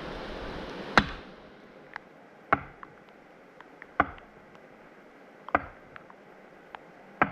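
Five heavy axe blows into wood, evenly spaced about a second and a half apart, with lighter knocks between them. A steady rushing noise dies away just after the first blow.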